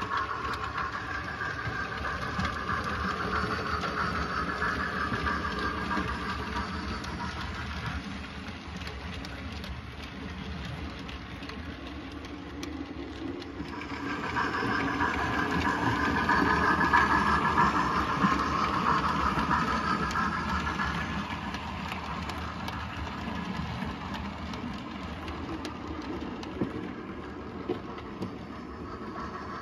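00 gauge model train running on the layout's track: a steady running noise that swells about halfway through and then fades.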